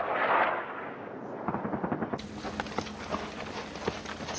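A loud rushing noise, then a run of sharp, irregular cracks of gunfire, several a second.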